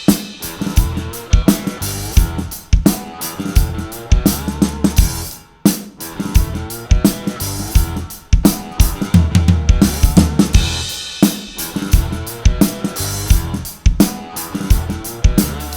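A drum kit played in a steady groove along to a backing song, with kick drum and snare hits throughout. The snare is fitted with a Big Fat Snare Drum pad to fatten and deaden its sound.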